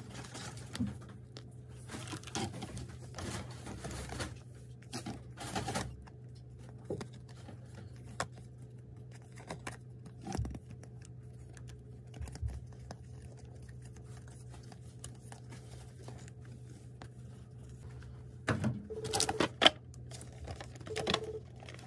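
Photocards being shuffled and flipped by hand, soft card-on-card flicks and small clicks. Near the end a clear plastic cassette-style album case clatters and clacks as it is picked up, the loudest sounds. A steady low hum lies underneath.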